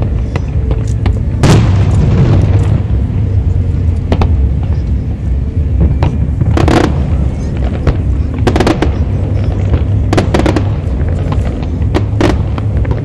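Aerial fireworks shells bursting: a string of booms and sharp bangs that come in clusters, over a continuous low rumble.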